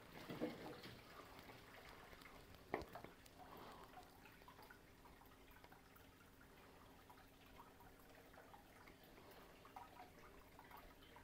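Faint trickle of aquarium water running through a siphon hose into a 25-litre canister, with small drips and one sharper click about three seconds in, over a faint steady hum.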